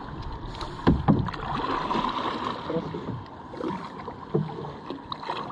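Water splashing against a small paddled wooden-and-fibreglass outrigger boat as the paddle works in the water, with two sharp knocks about a second in.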